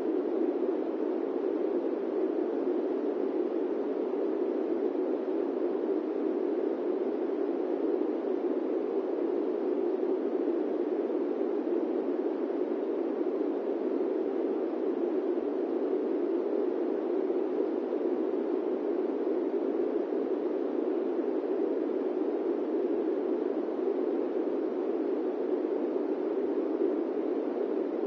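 Steady airplane-cabin white noise: an even, unchanging rush, strongest in the low-middle range, with no events or changes.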